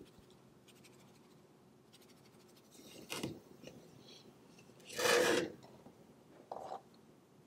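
A metal baking sheet handled and shifted on a wooden table, making three short scrapes. The loudest comes about five seconds in.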